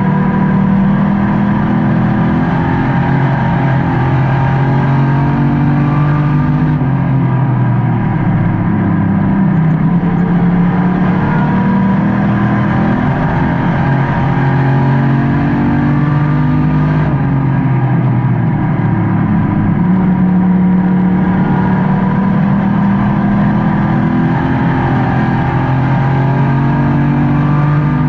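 Race car engine heard from inside the car at racing speed. Its pitch climbs, then drops and picks up again, in a cycle about every ten seconds: on the throttle down the straights and easing off into the turns.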